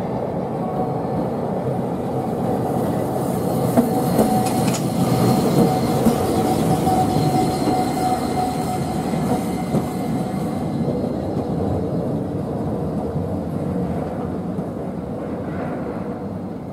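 Toei Arakawa Line 8900-series tram running past on its rails: a steady rumble of wheels and motors that grows louder as it passes close, with a few sharp clacks of the wheels over the track about four to six seconds in and a thin steady whine over it, then easing off.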